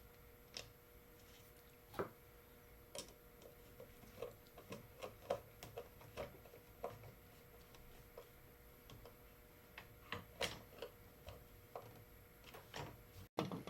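Faint, irregular clicks and light taps of hand work on a Bowflex power rod assembly, with a few louder knocks about two, three and ten seconds in.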